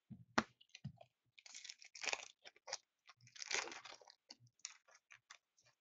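Hockey card pack wrapper being crinkled and torn open and the cards inside handled: irregular crackling and sharp ticks, with two longer rustling stretches about a second and a half and three and a half seconds in. The wrapper is sticky and slow to open.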